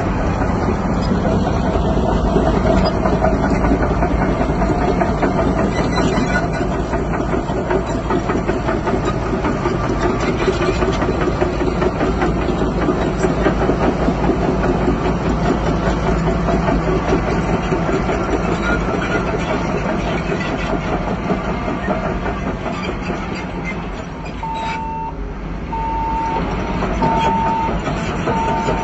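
Crawler bulldozer's diesel engine running steadily with a continuous clanking rattle of its tracks. Near the end a reversing alarm starts beeping, about one beep every second and a half.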